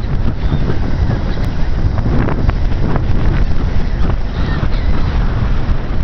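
Wind buffeting the microphone in a steady low rumble, over choppy sea water washing against a stepped concrete seawall.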